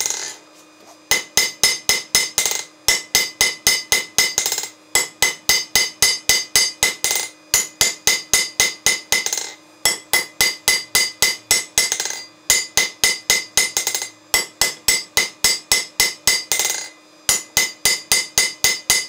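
Hand hammer striking red-hot steel on an anvil in fast runs of blows, with short pauses between runs, the anvil ringing after each strike; the blacksmith is drawing out the spike of an axe head.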